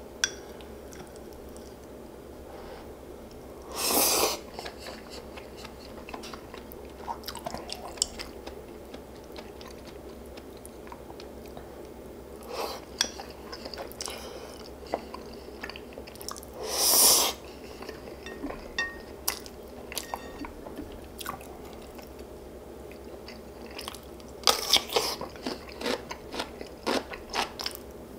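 Close-miked eating of pork-bone soup and radish kimchi: wet chewing with many crisp crunches from crunchy seokbakji radish. Two louder, longer noises come about 4 and 17 seconds in, and a dense run of crunching bites comes near the end.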